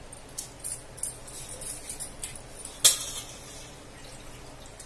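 Soaked rice being tipped from a container into a pot of boiling spiced water, with scattered pattering and light clinks and one sharp clink just under three seconds in.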